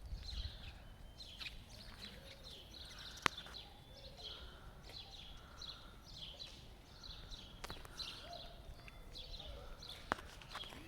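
Small birds chirping over and over, faint, with one sharp click about three seconds in.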